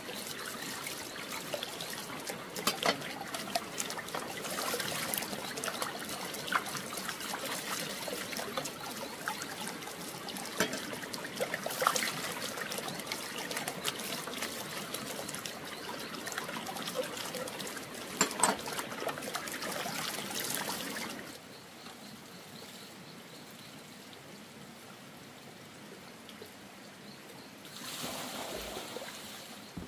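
Water trickling and splashing, with scattered light clicks and knocks. It stops about two-thirds of the way through, leaving a faint hiss, and comes back briefly near the end.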